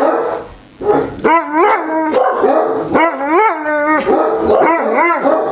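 Neapolitan Mastiff giving a fast run of short, rising-and-falling howling barks after a brief lull at the start. The dog is still worked up after a stranger knocked at the door.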